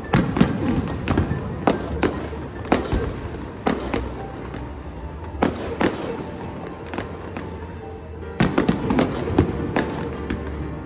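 Aerial fireworks bursting in irregular sharp bangs, with rapid clusters of bangs just after the start and again about eight and a half seconds in, over music playing underneath.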